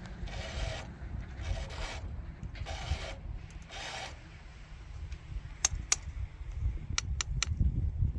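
Chain file rasping across the cutters of a chainsaw mill's hyperskip chain, sharpening it by hand: four strokes of about half a second each, roughly one a second. They stop after about four seconds, and a few sharp clicks follow near the end.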